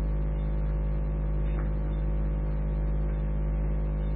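Steady low electrical hum with background hiss from an old, narrow-band tape recording, with no speech.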